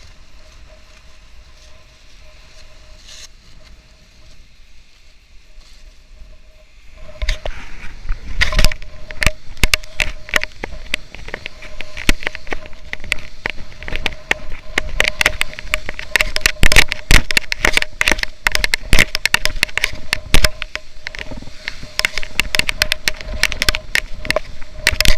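Action-camera microphone noise: a faint steady whine at first, then from about seven seconds in dense, irregular crackling and knocking as the camera is jostled and buffeted while its wearer walks along the beach.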